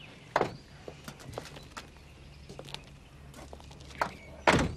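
Scattered footsteps and light knocks over a faint steady low hum, with one loud thump near the end.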